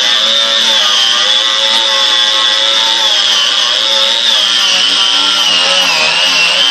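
Angle grinder with a polycarbide paint-removal disc running at a steady high whine while stripping thick layers of CARC paint off steel. Its pitch dips briefly near the end.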